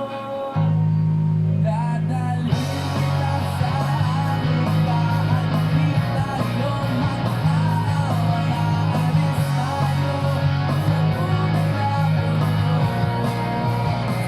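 Background music: a rock song with guitar and singing, with the bass coming in about half a second in and the full band at about two and a half seconds.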